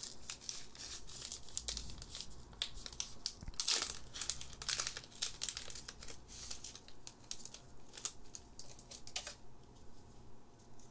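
Foil wrapper of a Pokémon TCG booster pack crinkling and crackling as it is torn open by hand and the cards are slid out. It is a dense run of sharp crackles that thins out near the end.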